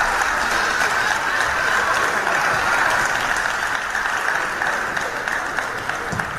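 Spectators applauding after a table tennis point, an even clapping that tapers off slightly toward the end.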